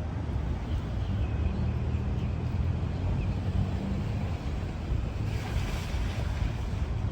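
Steady low rumble of a vehicle on the move, with wind noise over it and a faint engine hum in the first half.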